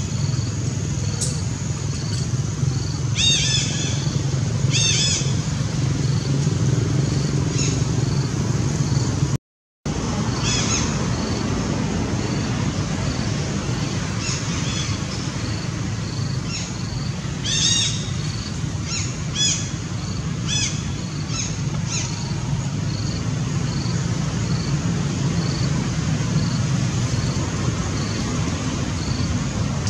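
Outdoor ambience: a steady low rumble of distant road traffic under scattered high chirping calls, with a short high note repeating about once a second in the second half. The sound cuts out briefly about a third of the way in.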